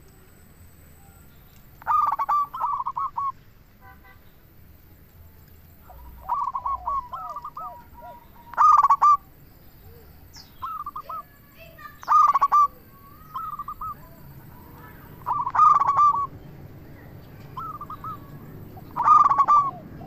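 Zebra doves (perkutut) cooing in short phrases of quick, rolling notes, about every two seconds, some phrases loud and some fainter.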